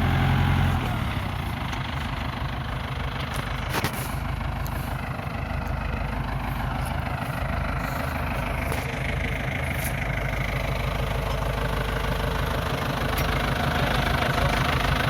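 SAME Explorer II farm tractor's diesel engine drops from a louder, higher-revving note to a lower, steady run about a second in, then keeps running evenly with a low throb. A single sharp click comes a little under four seconds in.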